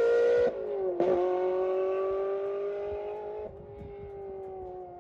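Ferrari 360 Modena's 3.6-litre flat-plane V8, through a Kline Innovation Inconel exhaust, accelerating away under load. The pitch climbs, breaks off for an upshift about half a second in, then climbs again at a lower pitch and fades as the car pulls into the distance.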